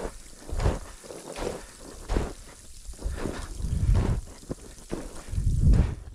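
Boots crunching into snow at a walking pace while descending a snowy mountain slope, with wind buffeting the microphone in low rumbling gusts, the strongest near the end.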